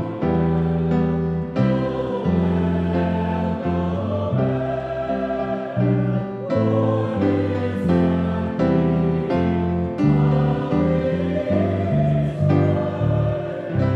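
Choir singing sacred music over piano accompaniment, with held, wavering vocal notes above struck piano chords.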